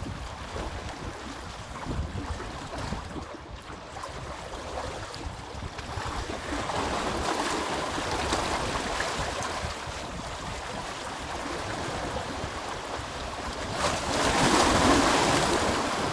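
Sea waves breaking and washing up the beach, rising twice, most loudly near the end, with wind rumbling on the microphone.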